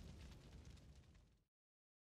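The tail of a logo intro's whoosh-and-burst sound effect fading away, then dead silence from about one and a half seconds in.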